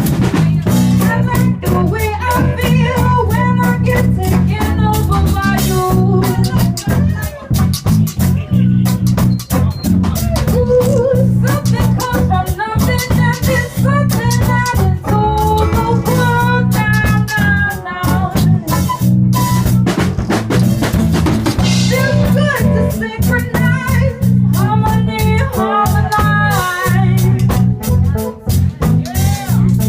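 A live reggae band playing: drum kit and a stepping bass line under a wavering melody line, without lyrics.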